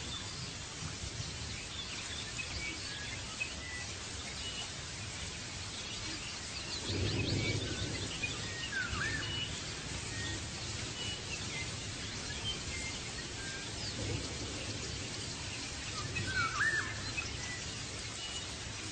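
Outdoor nature ambience: birds chirping and calling in short notes over a steady background hiss, with a low rumble swelling up about seven seconds in and again around fourteen seconds.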